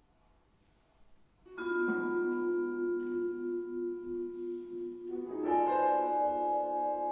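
After a second and a half of near silence, a chamber ensemble of vibraphone, piano, harp, flute and clarinet comes in with a held, ringing chord that pulses gently. A second, fuller chord enters about five and a half seconds in.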